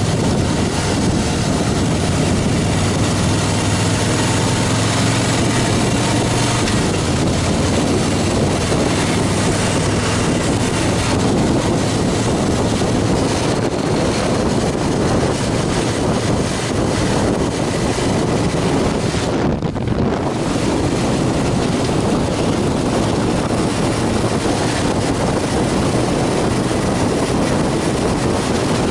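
Wind buffeting the microphone on a Harley-Davidson Fat Boy cruising at highway speed, over the steady drone of its V-twin engine. The wind noise dips briefly about two-thirds of the way through.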